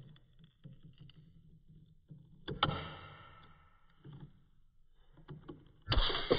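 Steel pry bar scraping and knocking against a McLaren cam phaser's spiral spring held in a vise, with a sharp metallic clank that rings on about two and a half seconds in. Near the end a loud metallic snap as the spring is levered free, sparking off the metal, and music comes in right after it.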